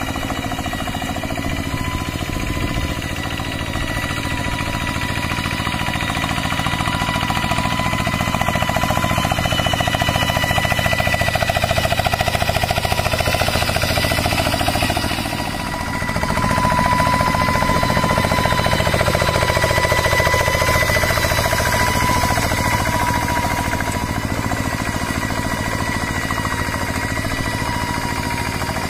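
Single-cylinder diesel engine of a two-wheel rice-paddy hand tractor with an aftermarket 'serigala' exhaust, chugging steadily under load while ploughing wet paddy mud. It gets louder twice as the load rises, with a short dip in between about halfway through.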